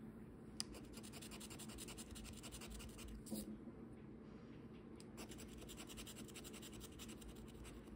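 Faint, rapid scraping strokes of a lottery scratch-off ticket's coating being scratched off, with a short lull a little before halfway.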